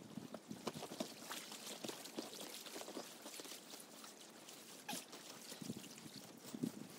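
Faint water lapping and trickling against a pebble shore, a steady patter of small irregular splashes.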